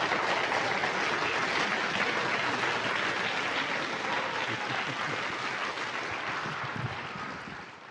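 Audience applauding at the end of a talk, the clapping fading away toward the end.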